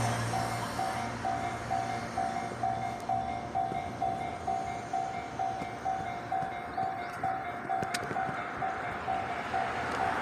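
Japanese level-crossing warning bell ringing, its electronic clang repeating about twice a second. Under it a passing train's rumble fades over the first seconds, and another train's noise builds near the end.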